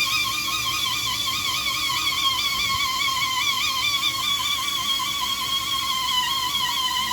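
Background music: a sustained melody line with a continuous wobbling vibrato.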